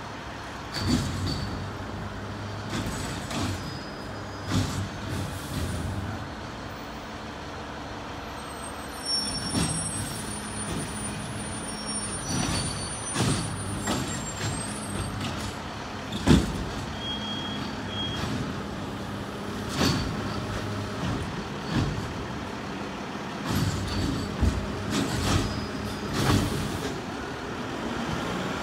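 Mack LEU garbage truck with a Bridgeport Ranger automated side-loader arm working: the diesel engine runs steadily and steps up in speed about nine seconds in, under repeated bangs and clanks as the arm grabs, lifts and empties the carts, with air-brake hisses between stops.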